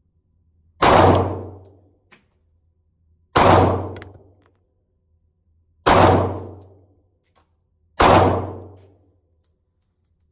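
Taurus G2C 9mm pistol fired four times at a slow, steady pace, about one shot every two and a half seconds, each shot ringing out and dying away over about a second.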